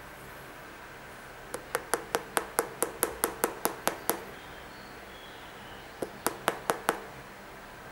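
A finger tapping on the hard carbon-fibre shank plate of a Nike Foamposite Pro sneaker: a quick run of about a dozen sharp taps, about four a second, then a pause and five more.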